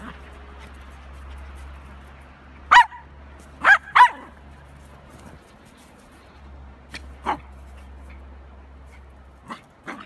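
Small dogs barking in play-fighting: three sharp, high yaps about three to four seconds in, then four fainter yaps later on.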